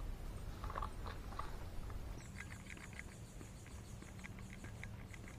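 Faint outdoor ambience of small creatures calling: short, high chirps come and go throughout, and from about two seconds in a thin, high, evenly pulsing buzz joins them.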